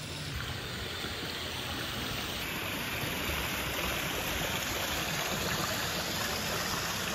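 Steady rush of running water, swelling slightly over the first few seconds and then holding even.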